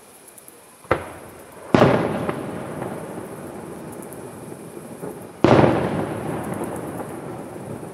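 Aerial firework shells bursting: a short sharp bang about a second in, then two loud booms, one just before two seconds and one about five and a half seconds in, each echoing away slowly.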